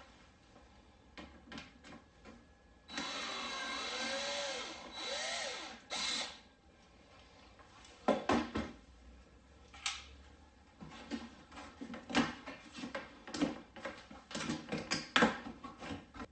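A power drill-driver runs for about two seconds, its pitch rising and falling as it backs out a screw, then gives two short bursts. Scattered clicks and knocks follow.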